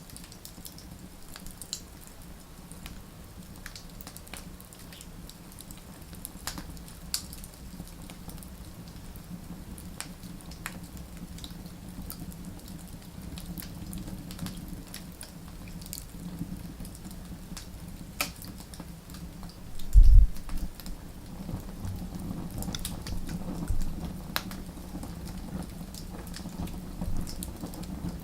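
Wood fire burning, with irregular sharp crackles and pops over a steady low rumble. A heavy low thud about twenty seconds in is the loudest sound.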